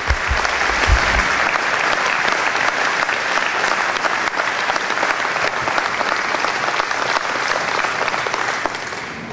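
Audience applauding: dense clapping that swells up at once and dies away near the end.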